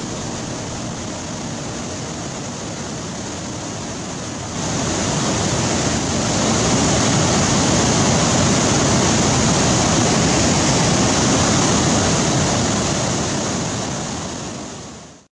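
The River Clyde in full flow pouring over a stone weir: a steady rush of whitewater that grows louder about four and a half seconds in and fades out at the end.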